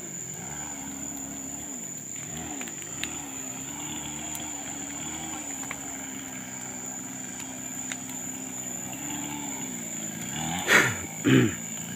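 Small engine running, its pitch rising and falling as it revs up and eases back, with a stretch of steadier running in the middle. Two short, louder sounds come near the end, over a steady high whine.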